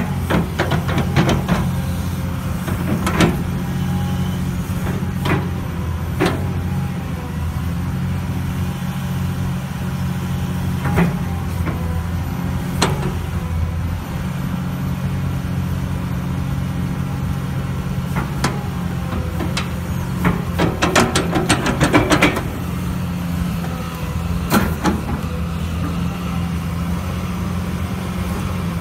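Excavator diesel engine running steadily with a low drone. Sharp metallic clanks and knocks come at scattered moments, with a quick run of clattering knocks about two-thirds of the way through.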